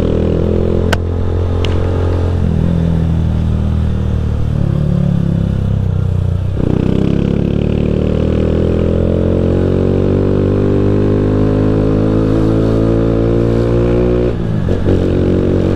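Honda Fan 160 single-cylinder four-stroke motorcycle engine under way, pulling up through the revs. Its pitch drops about a third of the way in at a gear change, climbs steadily for several seconds, then drops again near the end.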